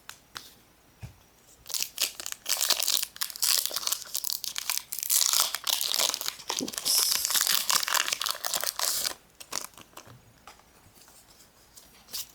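Foil wrapper of a Pokémon trading-card booster pack being torn open and crinkled, a dense crackling rustle lasting about seven seconds, then stopping, with a single click near the end.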